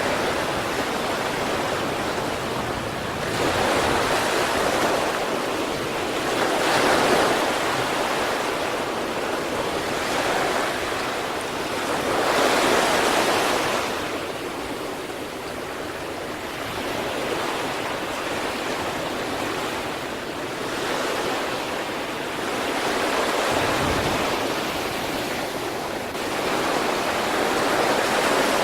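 Sea waves breaking and washing on the shore in a continuous rush, swelling and falling back every few seconds.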